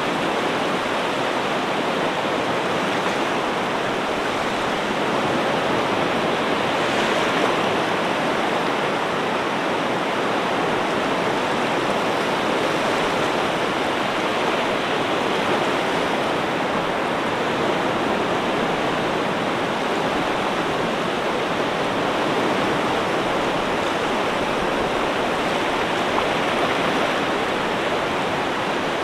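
Ocean surf as a steady rushing wash of water, even in loudness, with no separate wave breaks standing out.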